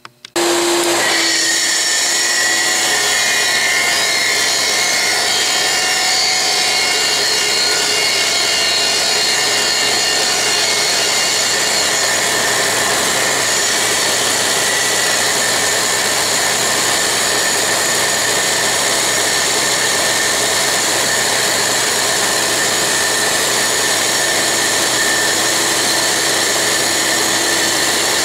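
Dumore toolpost grinder running at speed, its wheel grinding the 60-degree point of a lathe center that the lathe turns in reverse, with a shop vacuum drawing off the grinding dust. The result is a loud, steady high whine that comes on abruptly at the start.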